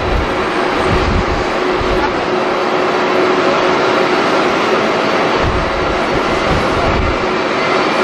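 Business jet's rear-mounted turbofan engines running with a steady, even jet noise as it rolls along the runway. Strong wind buffets the microphone in irregular low rumbles.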